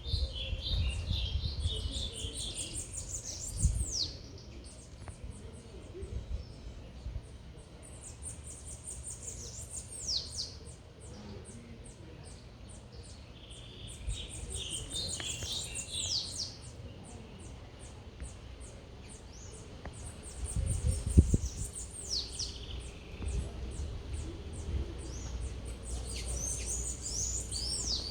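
Songbirds singing: clear whistled phrases that slide downward in pitch, repeated every five or six seconds, with quick chirps and high ticking calls between them. A low rumble of city background noise runs underneath and swells briefly about 4 s and 21 s in.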